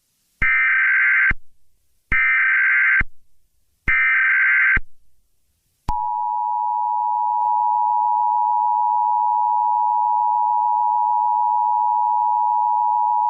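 Emergency Alert System tones: three short bursts of SAME header data tones about a second apart, then, about six seconds in, the steady two-tone attention signal (853 and 960 Hz together), which runs on past the end. This sequence marks the start of an emergency alert broadcast.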